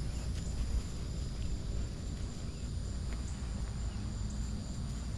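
Insects chirring steadily in the background, a few thin high tones held without a break, over a steady low rumble.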